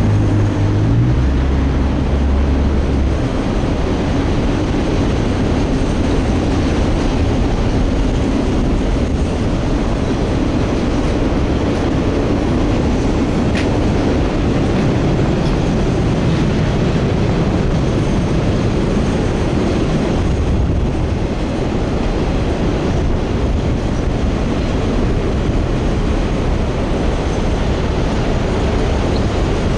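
Train cars rolling past on the tracks: a loud, steady rumble and rail noise, with a deep low hum in the first few seconds.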